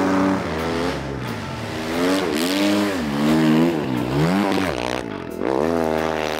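Snow bike's dirt-bike engine revving hard and unevenly as it pulls through deep powder, its pitch rising and falling several times: on the throttle, off, then on again.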